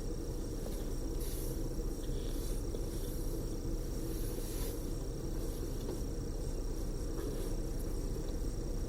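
Cabin noise inside a tour coach cruising on a freeway: a steady low rumble of engine and tyres on the road, with a thin, steady high-pitched whine over it. A brief hiss comes about a second and a half in and again near the middle.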